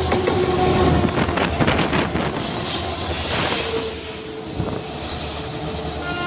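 WDG4 diesel locomotive passing close by at speed: a continuous engine rumble with the wheels clattering over the rails, loudest in the first half and easing off later.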